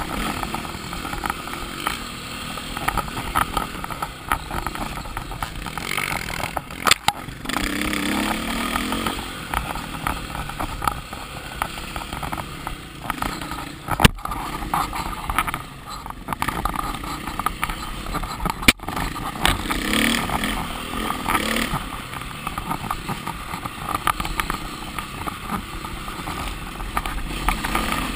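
KTM enduro dirt bike engine running under constantly changing throttle on rough trail, heard from the rider's helmet camera, with a couple of sharp knocks midway.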